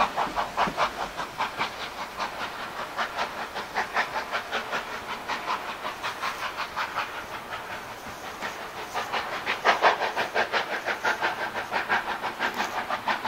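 Steam locomotive 3265, a two-cylinder NSW 32 class 4-6-0, working out of sight. Its exhaust beats come fast and even, about five chuffs a second, with a steam hiss, growing louder and fainter by turns.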